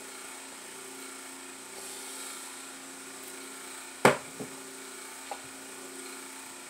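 A steady electrical hum with several faint fixed tones, broken about four seconds in by one sharp knock and then a couple of fainter ticks.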